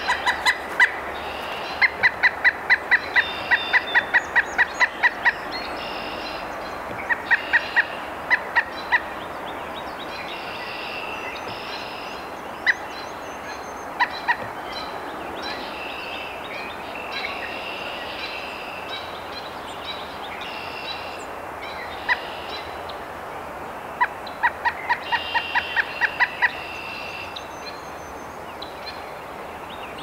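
Pileated woodpecker calling: three runs of loud, evenly spaced notes at about four or five a second, the longest lasting about three seconds, with other birds singing in the background.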